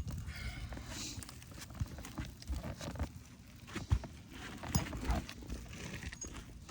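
Irregular knocks and taps from working on an asphalt shingle roof, the sharpest about four and five seconds in.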